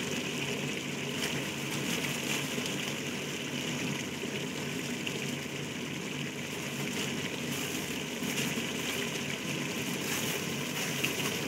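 Steady hiss of beef in hot oil cooking in the open pot as the spices go in, with a few faint crackles.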